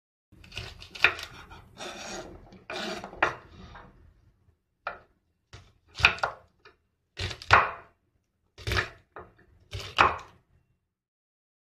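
Kitchen knife chopping a bunch of yardlong beans (sitaw) on a wooden cutting board: a series of sharp cuts into the board, roughly one every second, with short pauses between them.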